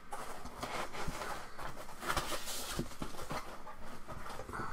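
Hands rummaging in foam packing inside a cardboard box: irregular rustling and scraping, with a few light knocks, loudest about two seconds in.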